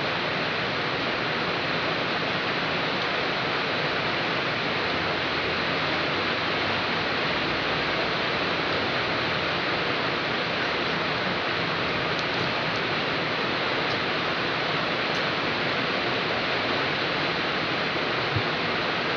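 Heavy rain falling steadily, an even hiss that holds the same level throughout.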